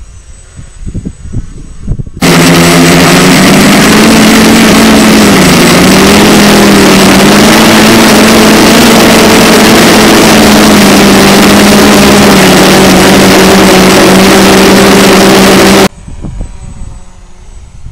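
ST360 quadcopter's electric motors and propellers heard from a camera mounted on the craft: a loud, distorted drone with a steady hum that wavers slightly in pitch as the throttle changes. It starts abruptly about two seconds in and cuts off abruptly near the end, with much quieter gusty rumbling before and after.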